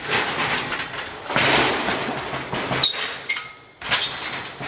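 Wooden scaffold boards being shifted and set down: scraping with several knocks, and a brief ringing tone a little before the loudest knock, about three seconds in.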